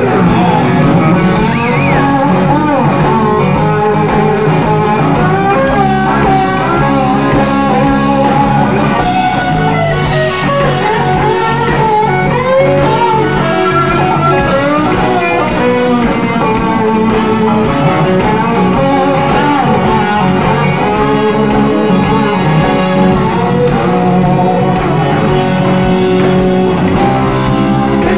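Live blues-rock band playing an instrumental break: a lead guitar plays a solo with notes bent up and down over the band's steady accompaniment.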